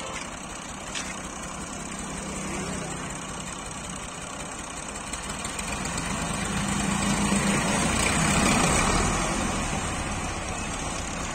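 Diesel engines of a Belarus tractor and a Massey Ferguson 240 tractor running while coupled nose to nose and pushing against each other in a tractor contest. The engines grow louder from about halfway through, peak, then ease off slightly near the end.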